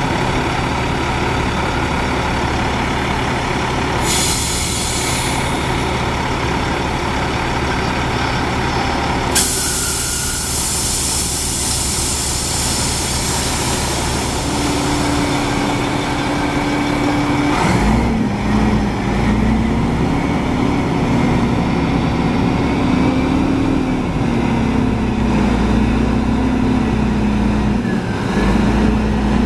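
A 2008 Freightliner M2112 dump truck's 12.8-litre six-cylinder diesel idling, with a hiss of compressed air about four seconds in and a longer one from about nine to seventeen seconds. Midway a steady hydraulic pump whine starts, then the engine speeds up and the whine wavers as the dump bed is raised.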